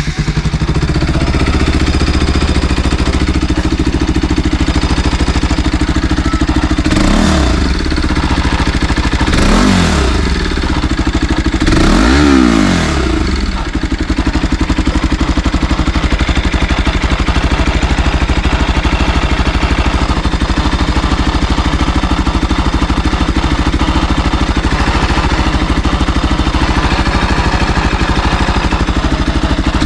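Bajaj Pulsar NS200's single-cylinder engine idling just after a cold morning start, with the throttle blipped three times in the first half before it settles back to a steady idle. This is the cold-start moment when the owner says its tappet tick shows up; the tappets have just been adjusted.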